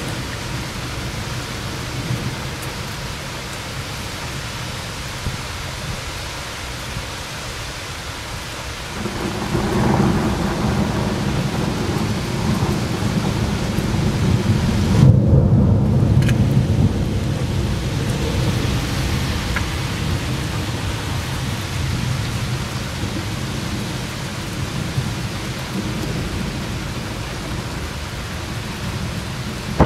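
Steady rain hiss with a long rolling thunder rumble. The rumble swells about nine seconds in, is loudest around the middle, and slowly fades.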